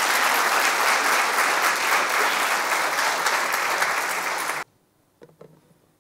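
Audience applauding steadily, then cutting off suddenly about three-quarters of the way through, leaving near silence with a few faint knocks.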